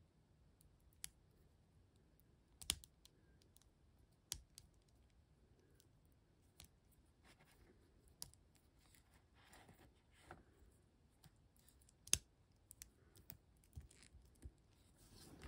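Small plastic parts of a transforming toy figure clicking and tapping as they are pried and moved by hand: scattered sharp clicks over near silence, the loudest about three seconds in and again about twelve seconds in.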